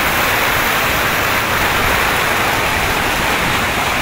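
Fountain jets splashing steadily into their basin.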